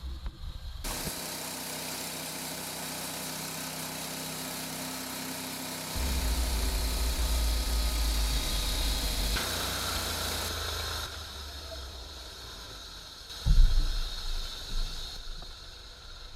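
Sawmill running, its engine and saw making a steady mechanical noise that shifts in loudness in sudden steps, then eases off before a single heavy thump near the end.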